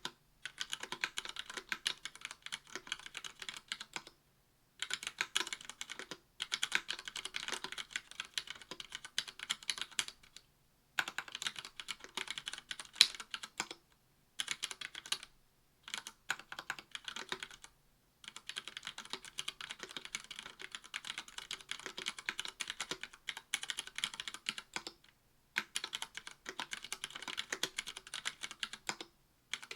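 Fast typing on a mechanical keyboard with Cherry MX Red linear switches, brass plate and GMK keycaps: dense runs of keystrokes broken by several short pauses, with one louder key hit about 13 seconds in.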